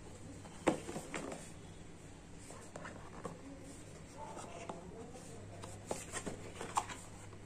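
A paperboard phone box being handled: sharp taps and clicks of the card and its inner tray, with light rubbing and scraping between them. The loudest click comes about a second in, and more come in small clusters near the middle and towards the end.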